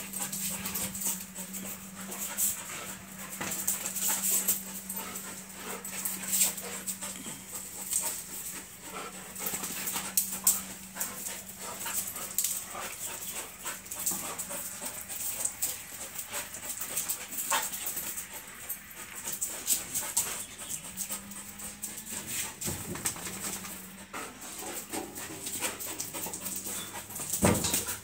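Two Belgian Malinois play-fighting: dog panting and whining, with many short scuffs and clicks as they tussle. A steady low hum runs under them for most of the time.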